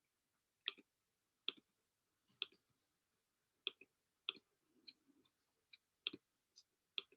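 Near silence broken by about ten short, sharp clicks, unevenly spaced, roughly one every half second to a second.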